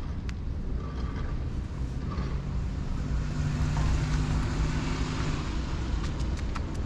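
A motor vehicle passing by: a steady engine hum builds from about two seconds in, is loudest around the middle and fades away, over a continuous low rumble. A few light ticks near the end.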